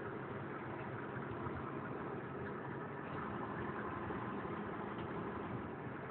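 Semi-truck's diesel engine running steadily, heard from inside the cab, with an even hum of road noise.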